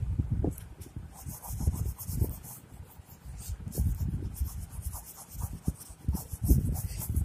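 Fingers rubbing over an oil-pastel drawing on paper to blend the colour: an irregular dry rubbing with soft thuds and a hiss that joins in about a second in.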